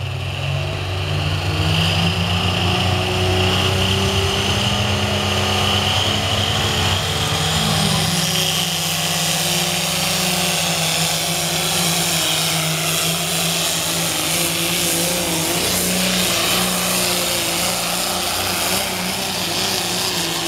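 Modified John Deere pulling tractor's diesel engine held at full throttle under heavy load as it drags a weight-transfer sled down the track. The engine note is loud and steady, with a high whine above it.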